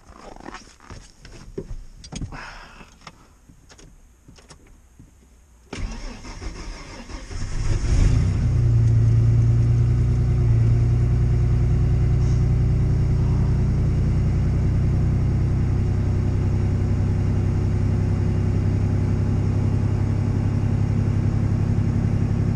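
A 1997 Ford F-150's six-cylinder engine cold-starting at −35 °F. After a few clicks and knocks, the starter cranks about six seconds in, and the engine catches within a couple of seconds and settles into a steady idle.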